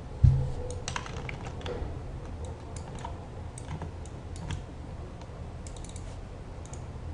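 Computer keyboard keys and mouse clicks tapping irregularly, with one dull thump against the desk or microphone about a quarter of a second in, the loudest sound.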